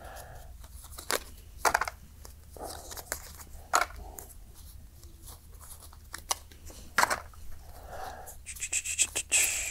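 Game cards being handled, sorted and dropped into a card holder's bins, with scattered sharp taps and a quicker run of clicks near the end.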